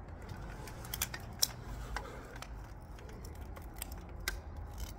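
Scattered, irregular faint clicks and crunches of a person moving about inside an empty concrete silo, over a low rumble.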